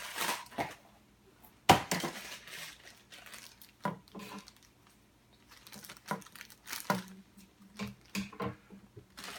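Blind-box packaging being handled and opened: crinkling and tearing with scattered clicks and taps, and one sharp knock about two seconds in.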